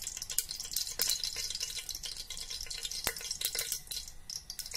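Oil and desi ghee heating in the bottom of a pressure cooker, sizzling with a steady hiss and irregular small crackles and pops.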